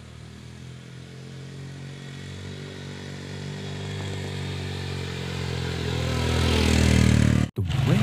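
Motorcycle engine approaching, growing steadily louder as the bike comes closer. A sudden break near the end gives way to an engine running louder and close by.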